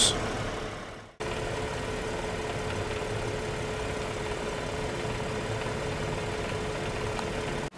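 The 2018 Cadillac CT6's 3.6-litre V6 idling steadily, with a faint steady hum over it, starting about a second in.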